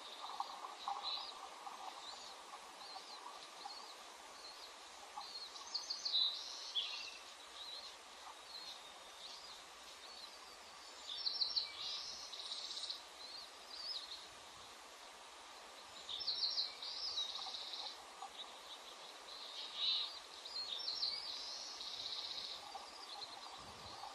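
Bald eagles giving high chirping calls in short clusters every few seconds over a steady background hiss.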